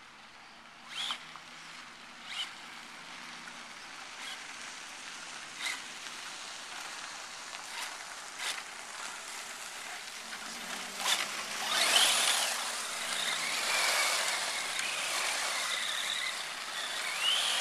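Traxxas Slash 4x4 Ultimate RC truck's brushless electric motor whining as it drives, with its tyres hissing over sand and grit on the road and a few sharp clicks early on. It gets much louder from about eleven seconds in as the truck comes close and accelerates, and the motor's whine rises and falls.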